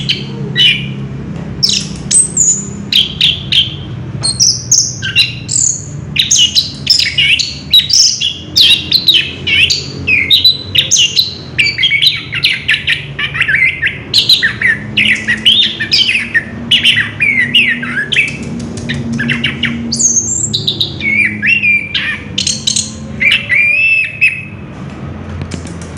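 Chestnut-capped thrush (anis kembang) singing a long unbroken run of rapid, varied whistles and chattering phrases, one after another with hardly a pause.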